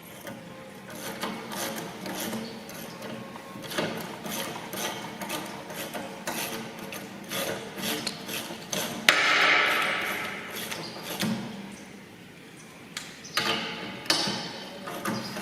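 Spanners working on steel bolts: irregular metal clinks and knocks as the bolts are tightened, with a louder scraping noise lasting about a second, about nine seconds in.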